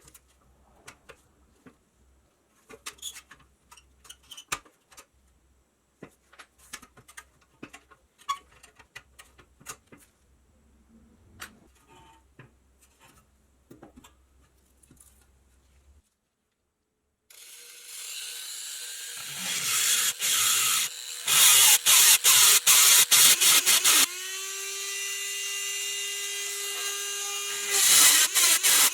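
Light, scattered clicks and taps. After a brief silence, a handheld power tool starts up and runs with a steady motor whine, with several louder bursts.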